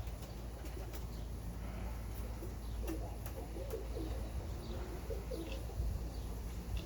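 Domestic pigeons, Birmingham rollers, cooing, a run of short low coos through the middle, over a steady low rumble of wind on the microphone.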